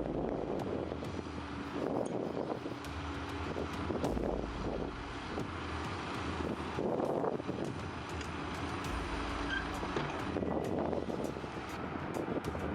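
Heavy earthmoving machine's diesel engine running under load, a steady low rumble that swells and eases.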